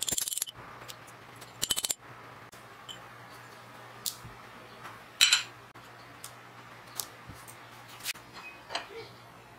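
Bicycle freewheel parts clicking as they are taken apart by hand: two quick rattling runs of metal clicks, at the start and just before two seconds in, then scattered single clicks and taps of the steel sprocket and loose ball bearings, the loudest a little after five seconds in.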